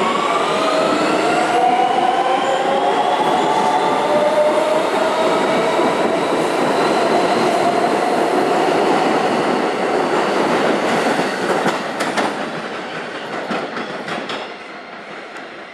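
New York City subway train pulling out of the station. Its motor whine rises in pitch and then holds steady, and a few wheel clicks come over the rail joints. The sound fades over the last few seconds as the train moves away.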